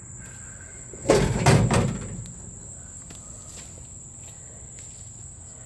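A metal file-cabinet drawer on a homemade smoker slides and bangs shut about a second in: a loud clatter of several sharp metal strikes lasting under a second. Crickets trill steadily behind it.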